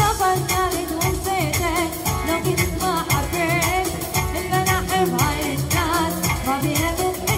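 A female singer performing a Middle Eastern pop song, her melody winding up and down in ornamented runs over a band with a steady beat.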